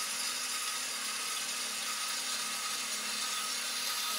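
Cormak horizontal metal-cutting band saw running, its blade cutting through steel bar stock: a steady, even sawing noise with a faint hum under it.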